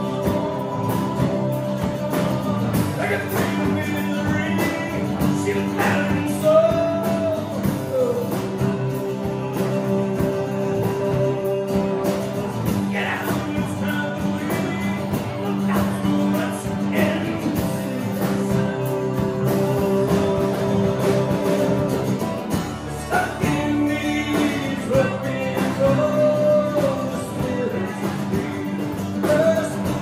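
Live rock band playing: a male lead vocalist singing over drums and acoustic and electric guitars. The singing breaks off briefly about three-quarters of the way through while the band plays on.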